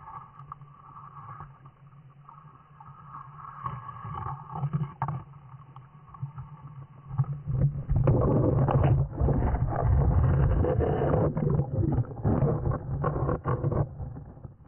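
Muffled underwater sound of a creek heard through a submerged camera: a steady low rumble of flowing water. From about halfway through it turns louder, into a crackling rush of churning water and bubbles.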